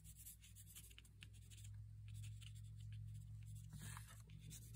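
Faint scratching of a watercolor pencil on paper in short, quick strokes, over a steady low hum.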